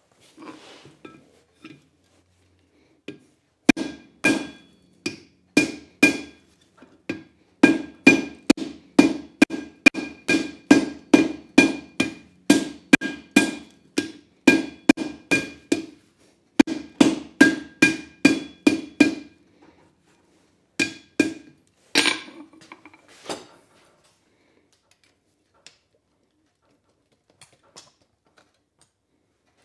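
Hand forging hammer striking a red-hot leaf-spring steel chisel blank on an anvil, shaping its profile. The blows come in runs of about two a second, each with a short metallic ring. They start a few seconds in and stop about two-thirds of the way through.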